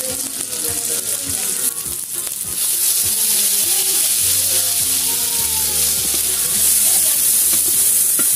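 Garlic and ginger sizzling in hot oil in an aluminium wok. The sizzle gets louder about two and a half seconds in as chopped red onion goes in, and a spatula stirs the pan near the end.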